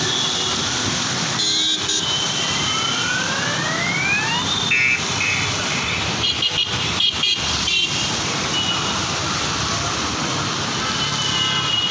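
Busy road traffic: a steady wash of vehicle noise, with several rising whines a few seconds in and short horn blasts around the middle.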